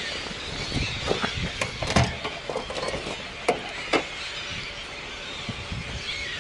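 A large flock of gulls calling constantly, a high squealing din. Over it, paper bags rustle and there are a few sharp knocks as bags of grass clippings and rolls of soaked padding are pulled off a trailer.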